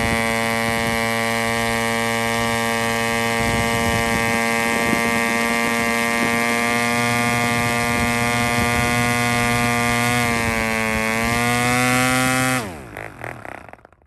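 Aurora K-650 6.5 cc model diesel engine running steadily at full speed, driving an 11 x 7 nylon propeller. About ten seconds in its pitch rises as it leans out with its fuel line pinched off; a couple of seconds later it cuts out and the note falls away quickly as the propeller winds down.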